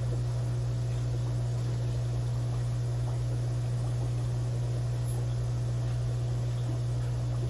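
Aquarium equipment running: a steady low hum with a faint even hiss.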